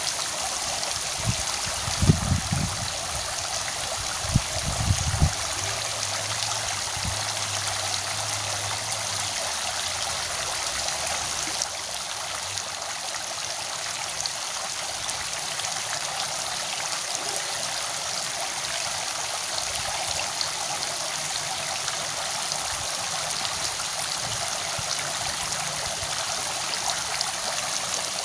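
Steady rushing of flowing water, with a few dull low thumps about two seconds and four to five seconds in.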